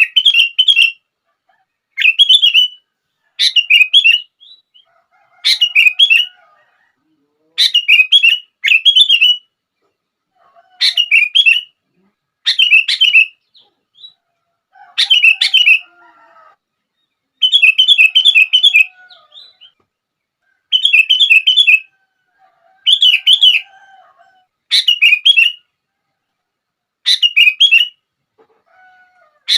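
Sooty-headed bulbul (kutilang) singing its short, bubbling phrase again and again, one loud burst of song about every two seconds.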